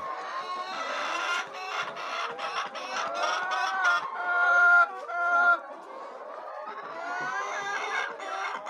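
A flock of chickens clucking and calling over one another, with one louder drawn-out call between about four and five and a half seconds in.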